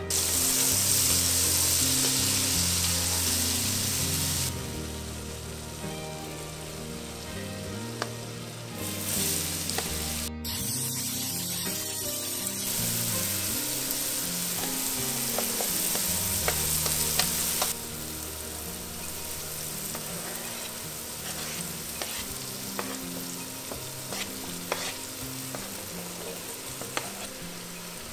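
Butter and chopped vegetables sizzling and frying in a hot enameled cast-iron pot. The sizzle is loudest for the first few seconds and again in the middle, with a few light clicks near the end. Soft background music plays underneath.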